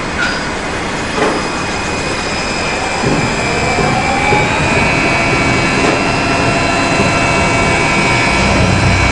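Gantry crane hoisting a heavy steel load: a steady mechanical noise with a high whine, a tone that rises about three seconds in as the load comes up, and a low hum building near the end. Two brief knocks sound in the first second or so.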